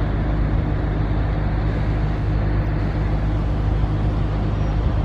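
Steady low engine hum with an even rumble of background noise, unchanging throughout.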